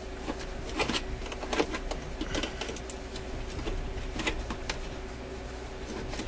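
Irregular small clicks and scrapes of fingers working a small retaining clip onto the metal linkage of an Admiral suitcase record player's changer mechanism, as the clip is pushed at without yet snapping home.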